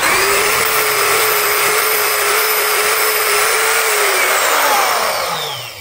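CK Turbo-Sharp X tungsten grinder running at full speed with a steady whine while TIG tungsten electrodes are ground on its diamond wheel, then switched off and winding down near the end.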